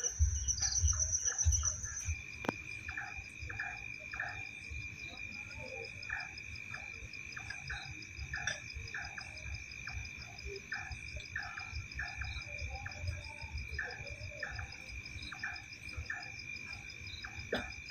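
Night chorus of frogs calling in short, repeated croaks over the steady high trill of crickets. About two seconds in, one high trill stops and a lower one takes over. There is low rumbling at the start.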